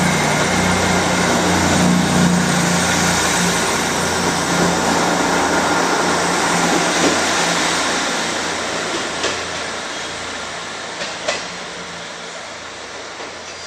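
Class 158 diesel multiple unit departing: the steady hum of its underfloor diesel engines and the rumble of its wheels on the rails, fading as the train pulls away, with a few sharp clicks in the second half.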